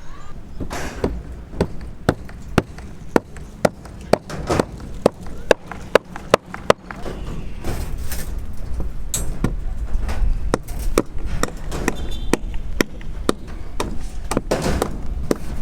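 Repeated hammer blows, sharp knocks at about two a second, over a low rumble. The knocks become scattered in the second half while the rumble grows louder.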